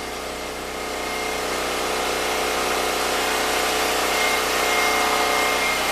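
Predator 6500-watt portable generator's gasoline engine running steadily, with a constant drone that gets a little louder about a second in.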